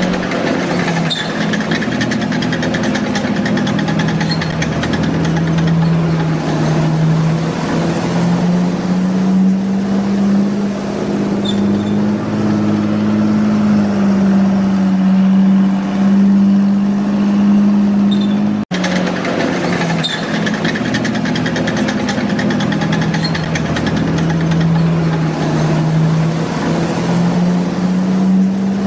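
Electric drive motors of a motorized LEGO model tank whining steadily as it drives on grass, the pitch slowly rising and falling as the speed changes. The sound cuts out for an instant about two-thirds of the way through.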